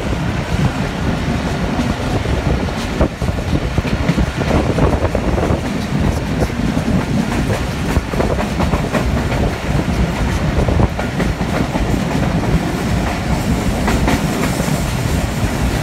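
Passenger train running along the track, heard from on board: a steady rolling noise of wheels on rail with many irregular clicks.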